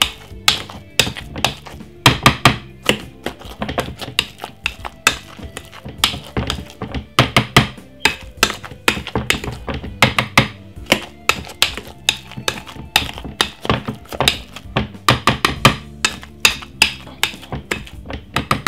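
A metal potato masher pounds soft boiled potatoes in a glass mixing bowl, knocking against the glass in quick, irregular strokes, several a second.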